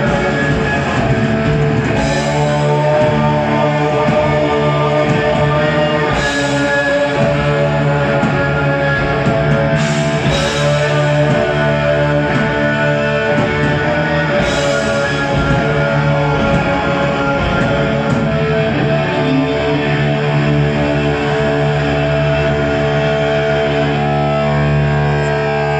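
Live heavy metal band playing: distorted electric guitars holding chords over drums, with a cymbal crash about every four seconds.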